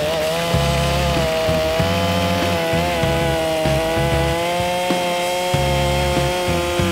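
Stihl MS 462 two-stroke chainsaw at full throttle cutting through a log, its engine pitch sagging slowly under the load of the cut.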